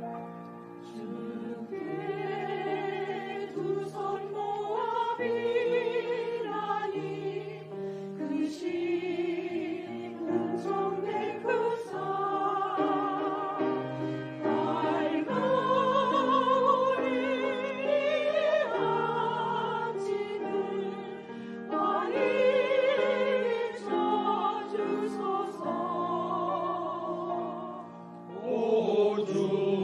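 Church choir singing a hymn with piano accompaniment. The voices sing with vibrato in phrases a few seconds long over held piano notes.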